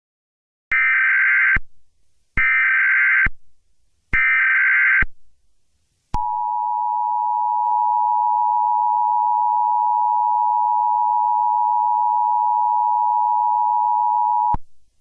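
Emergency Alert System tones: three roughly one-second bursts of SAME header data, then the steady two-tone attention signal held for about eight seconds before it cuts off. The tones open a National Weather Service special marine warning.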